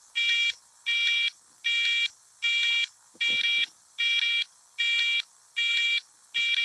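Electronic error alarm beeping in a steady repeating pattern, about nine identical buzzy beeps each roughly half a second long, one every three-quarters of a second. It sounds a system error warning.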